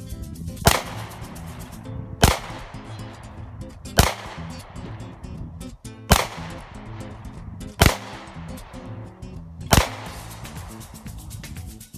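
Six handgun shots fired one at a time at a steady pace, about one every two seconds, over background music.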